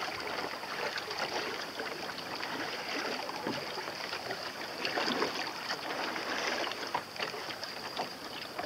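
Seawater splashing and lapping against the hull of a small boat moving across calm sea, over a steady rushing hiss.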